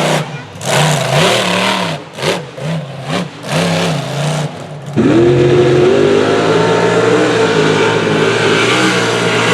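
Off-road 4x4 engines revving, the pitch rising and falling in short pulls with breaks between them. About five seconds in a louder engine comes in, climbs in revs and keeps running hard.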